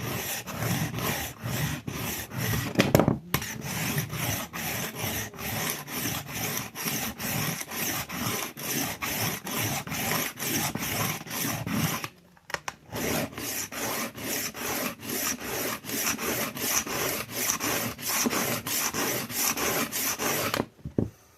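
Steel kitchen knife blade being stroked back and forth across a diamond sharpening stone, a rapid, even rasping of about three strokes a second. The strokes pause briefly about twelve seconds in, then resume and stop just before the end.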